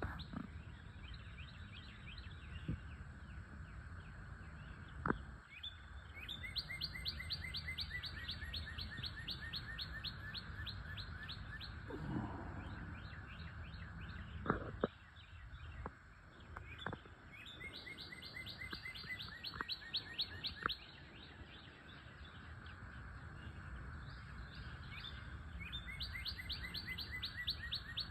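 A songbird singing a fast trill of rapid repeated notes, in phrases a few seconds long that come three times, with other birds chirping between them. A couple of sharp taps are heard as well.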